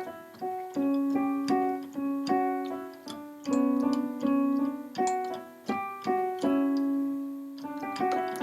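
Background music: a piano melody of struck notes, each ringing and fading before the next.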